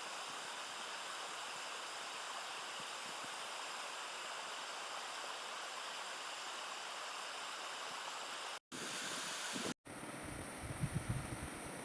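Waterfall water rushing, a steady even hiss. It drops out twice near the end, and in the last couple of seconds some low rumbling bumps come in over it.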